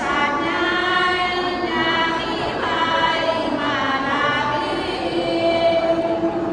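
A women's sarabhanya group singing Thai Buddhist devotional chant, voices holding long notes that bend and waver.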